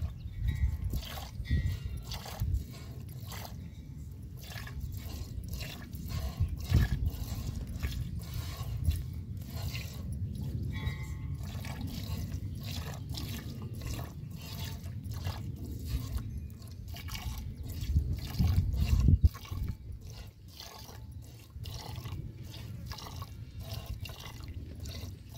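Hand-milking a cow: jets of milk squirting into a steel pot in a steady rhythm of short hissing strikes. A low rumble runs underneath and swells loudest about two-thirds of the way through.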